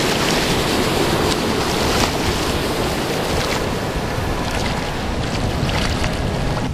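Steady wind noise on the microphone over sea water washing, with a few light splashes from a swimmer's kicking feet.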